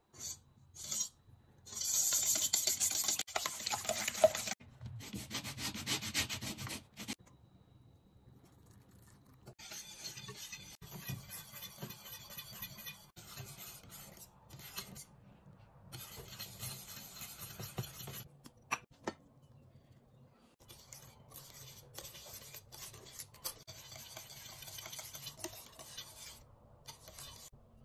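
Wire whisk beating eggs in a stainless steel bowl: a loud, fast scraping that runs for a few seconds in two stretches. Then, after short gaps, quieter rhythmic whisk scraping as the lemon curd is stirred in a saucepan.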